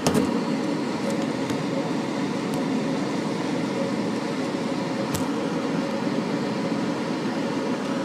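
York gas furnace running close up: a steady motor hum and airflow whoosh, with a few light clicks of handling.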